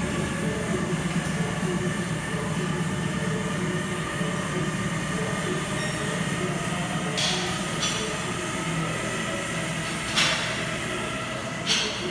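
Steady mechanical drone of gym ambience, from running machines and fans, with three brief louder noises in the second half.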